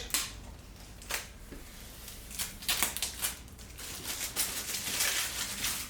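Protective plastic film being peeled off the front panel of a PC case, crackling and crinkling in short irregular bursts that grow denser about halfway through.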